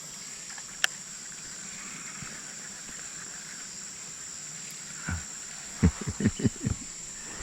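Steady, high-pitched buzzing of an insect chorus. A quick run of short, low knocks comes between about five and seven seconds in.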